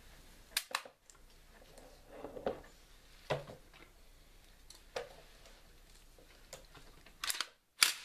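Umarex Legends MP 40 CO2 BB gun being handled, its metal controls worked with gloved hands: a few sharp clicks with soft rustles between them, and the loudest click near the end.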